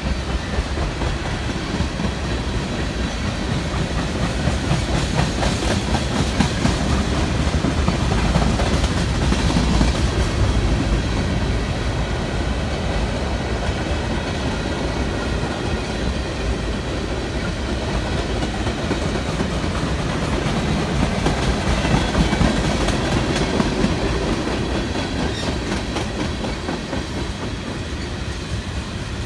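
Freight train of tank cars rolling past at steady speed: a continuous rumble of steel wheels on rail with a run of clicks as the wheels cross rail joints, swelling and easing slightly as the cars go by.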